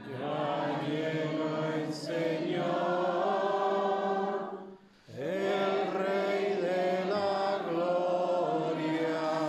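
Singing of the responsorial psalm at Mass: two long sung phrases of held notes, with a short break about halfway.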